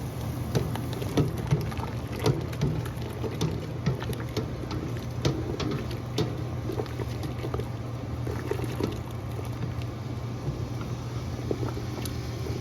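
Large pot of salted water at a rolling boil, bubbling with irregular pops and clicks, over a steady low hum.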